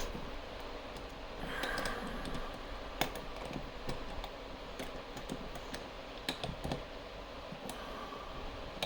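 Scattered small clicks and knocks of a lock being handled and fitted into a clamp, with a brief rustle about one and a half seconds in and a sharper click about three seconds in.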